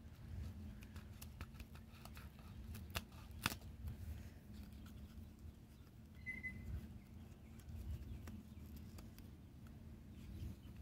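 Hand pruners snipping, faint short clicks and rustling of leaves being handled, with two sharper snips about three seconds in. A brief high chirp sounds near the middle.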